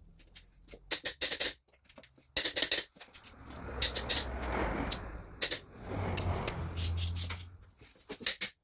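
Socket wrench working a wheel's lug nuts: quick runs of ratchet clicks as the nuts are tightened, with two longer stretches of scuffing noise in the middle.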